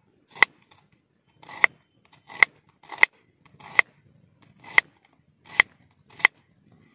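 Kitchen knife slicing a small onion on a wooden chopping board: eight crunchy cuts, each ending in a sharp tap of the blade on the board, about one every three-quarters of a second.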